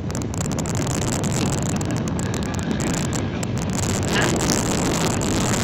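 Wind rushing over the microphone while riding along a road, with a motorcycle engine running steadily underneath.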